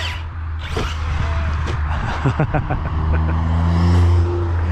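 A car driving slowly past, its engine note steady and growing louder until near the end.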